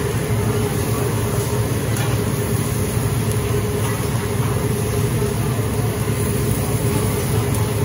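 A steady ventilation hum over sizzling steaks on a teppanyaki flat-top griddle, with a few faint clicks of metal spatula and tongs against the steel.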